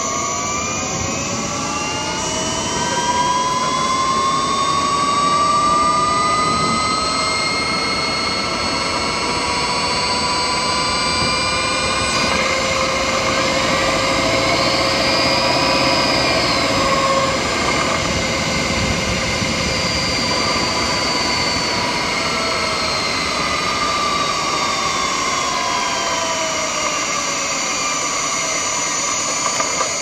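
Honda Insight i-MMD hybrid's electric drive motor and inverter, recorded in the engine bay, making several whines that rise in pitch as the car speeds up and fall as it slows, over a steady high tone. The petrol engine starts about halfway through as EV mode ends.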